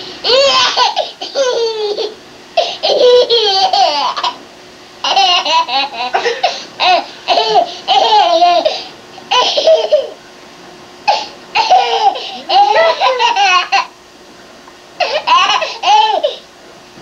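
A baby laughing in repeated fits, about six bouts of high, breathy giggles with short pauses between them.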